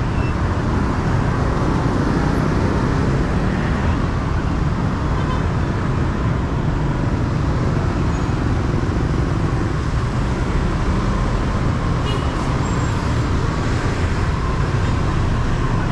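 Steady city street traffic: a stream of motorbike and scooter engines with cars and a bus, an even wash of noise with no single standout event.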